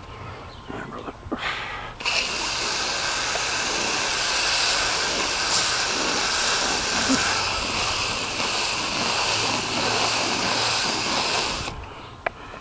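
Steady hiss of a pressurised liquid spray from a nozzle during an air-conditioner coil cleaning. It starts suddenly about two seconds in, runs for nearly ten seconds, then stops, and a single sharp click follows.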